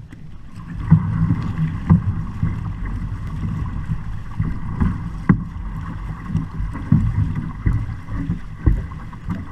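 Water rushing along the hull of a moving outrigger canoe, with wind on the microphone and short knocks about once a second.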